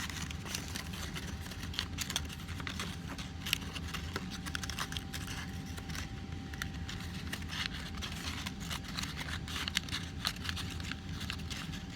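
Origami paper rustling and crinkling as the accordion-folded layers are worked and pulled apart by hand: many small crackles over a steady low hum.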